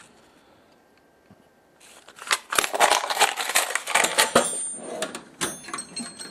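Small metal wrenches clinking and rattling in a plastic tray as it is set back into a steel tool-chest drawer, starting about two seconds in, then a knock as the drawer is pushed shut.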